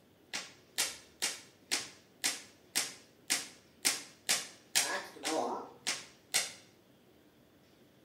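A steady run of about thirteen sharp, clapping clicks, roughly two a second, each with a short ringing tail; they stop suddenly after about six and a half seconds. A short voiced sound comes in among them about five seconds in.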